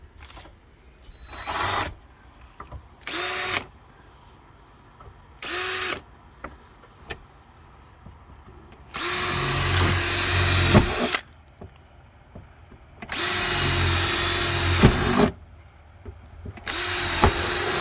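Power drill running in bursts: three short trigger pulls, then three longer runs of about two seconds each, with a few clicks in between.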